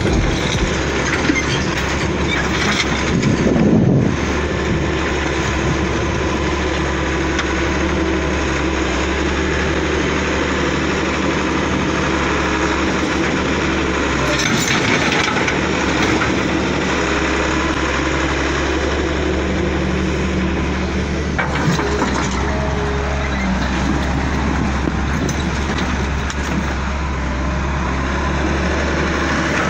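Heavy-equipment diesel engine running steadily, with a brief louder swell a few seconds in.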